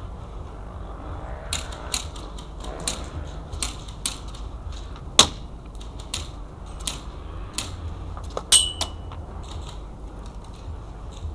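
Sharp cracks and clicks at irregular intervals, typical of airsoft guns firing during a game. The loudest comes about five seconds in, and one near the end rings briefly with a metallic tone.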